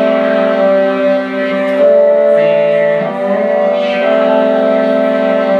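Slow music played for a stage performance: sustained chords that change every second or two, with no talking.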